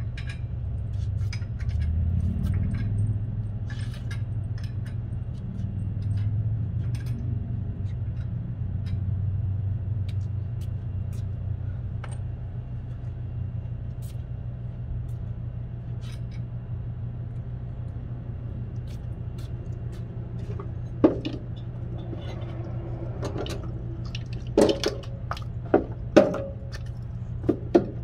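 Metal shopping carts rattling and clinking as they are pushed and nested, with several sharp metal knocks in the last several seconds, over a steady low hum.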